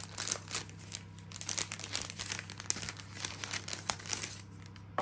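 Folded parchment cooking bag crinkling as hands handle and unfold it: irregular papery rustles and crackles.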